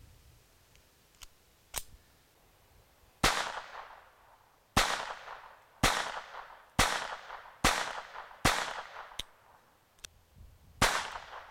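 Colt 1908 Vest Pocket pistol firing .25 ACP: seven sharp shots, the first about three seconds in, then roughly one a second, with a pause of about two seconds before the last. A couple of small clicks come before the first shot.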